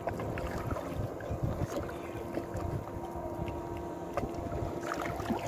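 Water lapping and slapping against the hull of a small open skiff on a choppy sea, with wind buffeting the microphone in irregular low rumbles.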